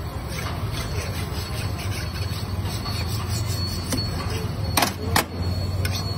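Long knife shaving chicken off a vertical shawarma spit, scraping through the meat, with two sharp metallic clicks from the knife and tongs about five seconds in, over a steady low hum.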